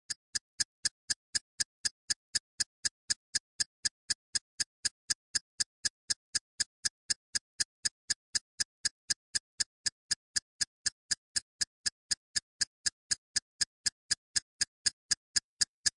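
Clock-ticking sound effect: sharp, evenly spaced ticks at about four a second, with dead silence between them.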